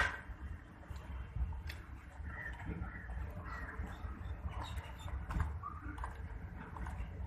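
Birds calling, short calls scattered over a low steady rumble, with a few sharp clicks.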